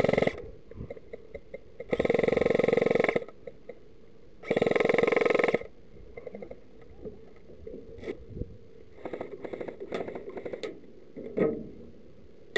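Airsoft gun firing on full auto: three bursts of about a second each, rapid shots over a motor whine, about two and a half seconds apart. Later, softer clicks and rustling, with a single knock near the end.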